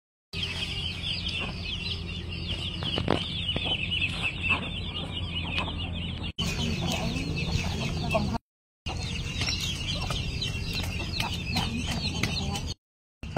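Chickens clucking, over a constant rapid high chirping and a steady low hum, with a few knocks. The sound breaks off briefly twice.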